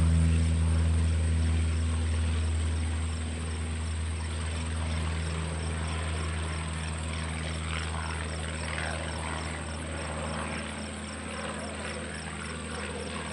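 Small biplane's propeller engine at full power during takeoff, a steady low drone that fades as the plane lifts off and climbs away.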